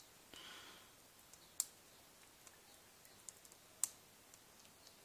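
Faint metallic clicks and taps of a short hook pick and tension wrench working the pins inside a Master Lock 5-pin bicycle lock while it is being picked. A few sharp clicks come scattered through, the loudest near four seconds in, with a short rustle near the start.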